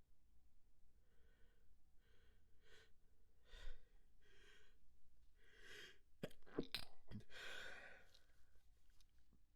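A person's breathy, catching in-breaths, about one a second, building up to a quick run of sharp, stifled sneezes a little past halfway, then a breath out.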